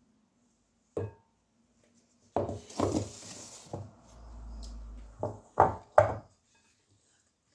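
A measuring jug and a stirring utensil knocking and clinking against a glass mixing bowl while liquid is poured in and mixed into flour: about seven separate knocks, the loudest two near the end, with a brief hiss in the middle.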